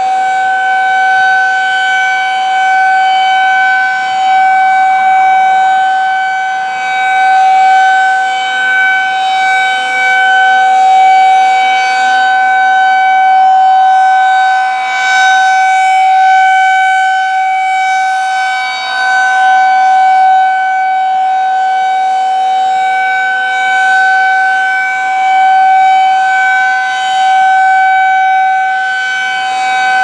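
Federal Signal 2001-SRNB outdoor warning siren sounding the steady-tone alert signal during a siren test. One unbroken wail at a fixed pitch, swelling and fading in loudness as the rotating horn sweeps round.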